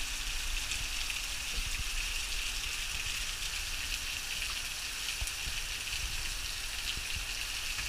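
Heavy rain falling on the open sea surface, a steady, even hiss.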